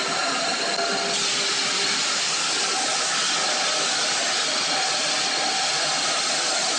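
Lathe spinning a metal pressure cooker body with a gloved hand pressed against the turning surface: a steady machine hum with a hiss of rubbing, which grows brighter about a second in.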